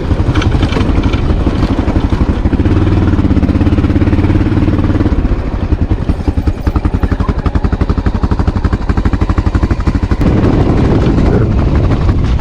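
Honda XR650L's air-cooled single-cylinder engine running as the motorcycle is ridden, its pitch shifting with the throttle. Partway through it drops to a slow, even beat of individual firing pulses, as at low revs.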